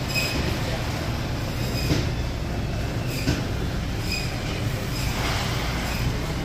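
Steady low rumble of supermarket ambience, with short high squeaks coming about once a second.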